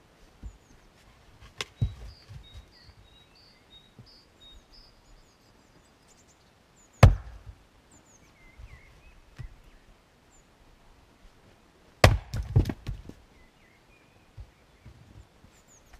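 Fiskars X25 splitting axe striking and splitting firewood, one-handed: three sharp chops several seconds apart, the loudest near the middle, the last followed by a quick run of smaller knocks. Faint bird chirps between strikes.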